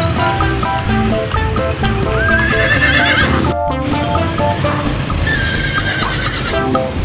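Horse whinnying twice, a wavering high call about two seconds in and again about five seconds in, over background music with a steady plucked melody.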